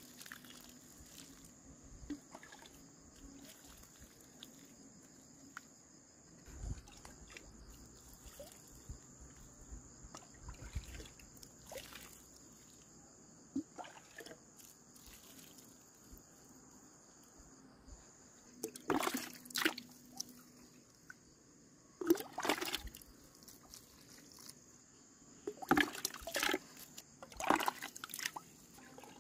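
Water being scooped from a plastic bucket with a small bowl and poured onto loose soil around seedlings: soft trickling and dribbling, with several louder sloshes and splashes in the last ten seconds.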